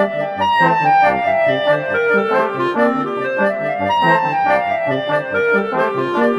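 Instrumental theme music: a melody in falling phrases over bass notes and a steady drum beat.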